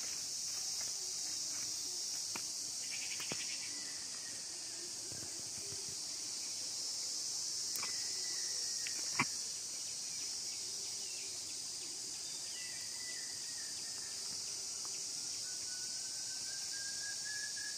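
Steady, high-pitched insect chorus, a continuous shrill drone, with footsteps on the leaf-littered path, a sharp click about nine seconds in, and a few faint bird chirps.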